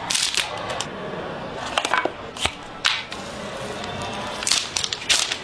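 Sharp clicks and crackles of a phone box and its packaging being handled and opened, over background music.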